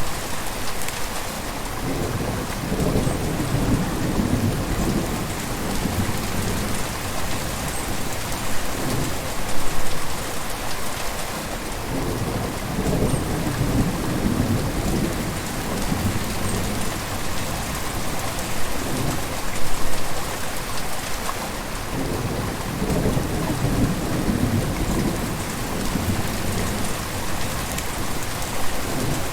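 Gentle river flowing: a steady rush of water, with deeper swells that rise and fall about every ten seconds.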